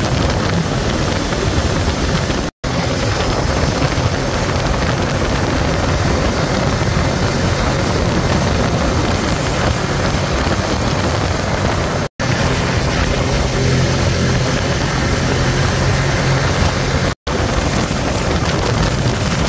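ATV engine running steadily at road speed, with tyre and wind noise rushing over the microphone. The sound cuts out for an instant three times, at edits in the recording.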